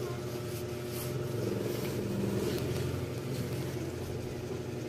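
A steady low mechanical hum made of several held tones, with a few faint light ticks over it.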